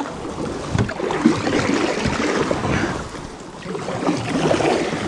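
River water rushing and splashing around a canoe as it is paddled, with some wind on the microphone.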